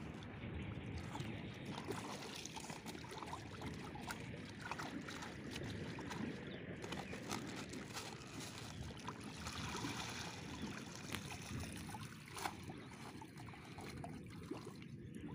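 Shallow river water splashing, sloshing and trickling as a woven sack holding small fish is dunked and swished about in the water to rinse the catch.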